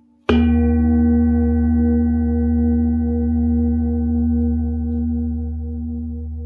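Singing bowl struck once with a padded mallet, then ringing on with several overlapping tones and a slow pulsing wobble, gradually fading.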